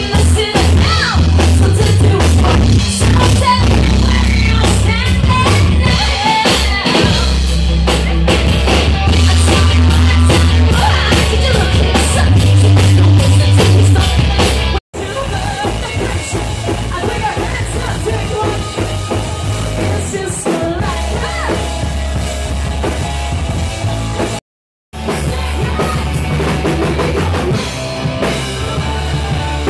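Rock band playing live and loud: pounding drums and heavy bass under a female lead singer, heard from among the crowd. The sound breaks off for an instant about halfway through and again near the end as one clip cuts to the next.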